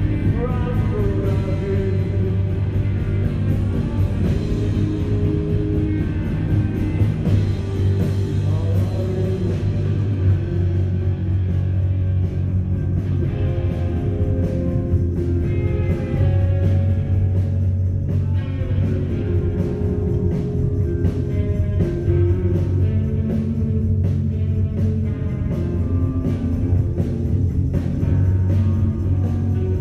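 A rock band playing live: electric guitars over a steady drum beat.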